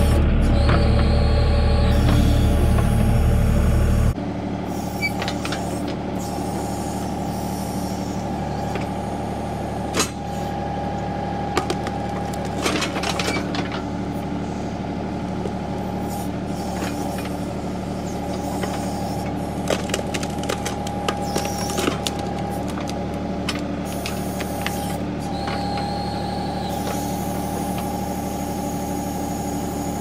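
Compact tractor engine running while a John Deere 270B backhoe's hydraulics lift and set down a dug-out tree stump. Scattered cracks and knocks come from the stump and roots, and a high hydraulic whine sounds twice, about a second in and near the end. The sound is close and heavy in the bass for the first four seconds, then heard from further off.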